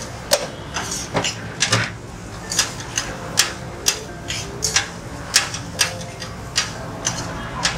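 Metal spatula and knife clanking and scraping on a steel flat-top griddle as chicken is chopped and turned. The sharp strikes come irregularly, about two a second.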